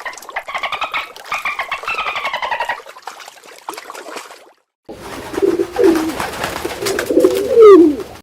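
Animal calls from two separate recordings. First comes a rapid pulsing call whose pitch rises and then falls. After a short break, low calls glide up and down in pitch.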